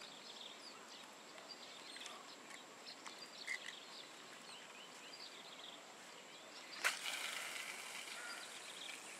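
A spinning rod being cast: a sharp swish about seven seconds in, followed by a couple of seconds of hiss as line pays off the reel. Before it, faint scattered bird chirps.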